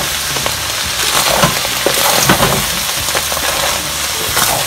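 Fried rice with vegetables and smoked herring sizzling in a wide stainless steel pot while being stirred vigorously, the utensil scraping and knocking against the metal now and then.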